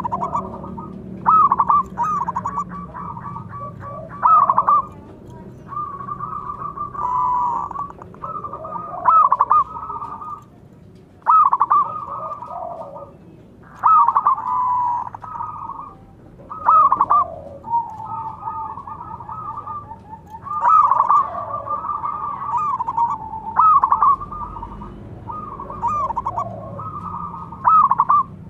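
Zebra doves cooing again and again: quick runs of staccato cooing notes, with one bird's phrases overlapping and answering another's, and short pauses between bouts.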